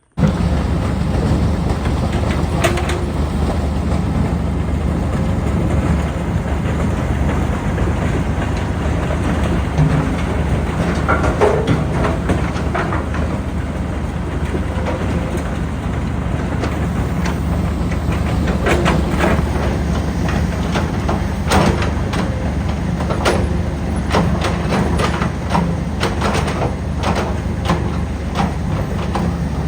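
Track-mounted crusher grinding asphalt into millings: a steady low engine and machinery rumble with chunks knocking and clattering through it, the knocks coming more often in the second half.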